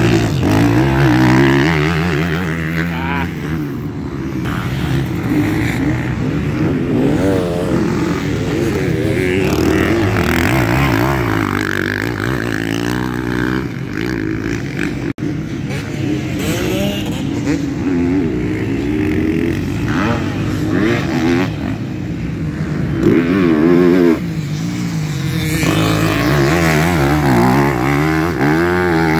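Several motocross dirt bikes racing, their engines revving up and down through gear changes, with more than one bike heard at once. The sound breaks off for an instant about halfway through.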